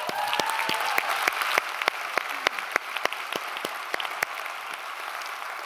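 Audience applauding, with a few sharp individual claps standing out above the rest; the applause slowly dies down toward the end.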